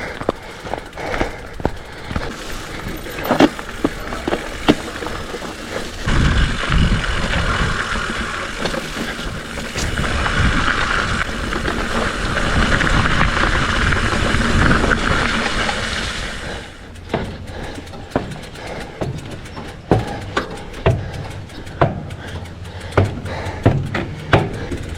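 Specialized Fuse hardtail mountain bike riding singletrack: tyres on dirt with sharp knocks and rattles over bumps. From about six seconds in a louder steady rush lasts about ten seconds, then the knocks and rattles return.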